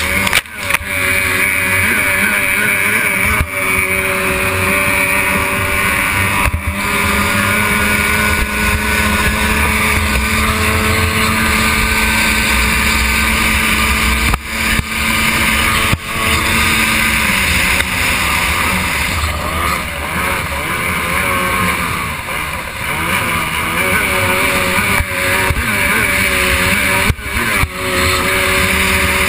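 A stock outboard hydroplane's outboard racing engine running hard at speed, heard from on board over the hiss of wind and water. Its pitch holds steady, then wavers up and down through the second half.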